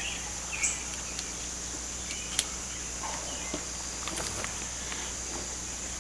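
Steady high-pitched chirring of insects, with a few faint clicks now and then.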